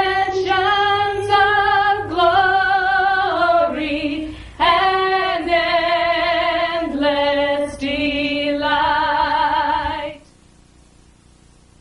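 A woman singing slow, held notes with vibrato. The singing stops abruptly about ten seconds in, leaving a faint hiss.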